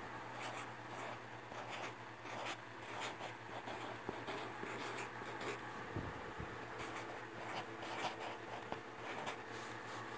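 Felt-tip marker writing on manila card: short, irregular scratchy pen strokes.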